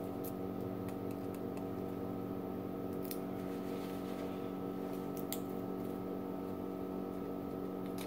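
A steady background hum of several held tones, with a few faint crinkly clicks from a small microwave-shrunken foil chip bag being handled in the fingers.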